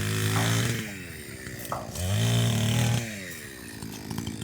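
Small two-stroke engine of a brush cutter, throttled up and let back twice. It holds high revs, drops to a lower run just under a second in, revs up again about two seconds in and falls back about a second later.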